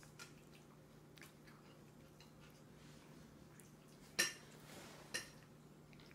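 Two sharp clinks of tableware about a second apart, the first louder and ringing briefly, against a quiet room with a faint steady low hum.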